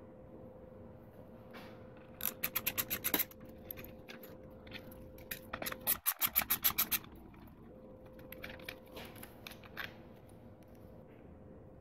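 Two short bursts of rapid mechanical clicking, about ten clicks a second, each lasting about a second, over a faint steady hum.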